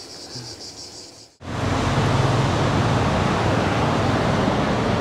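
Faint crickets chirping, then about a second and a half in a sudden cut to a loud, steady rush of wind on the microphone while riding.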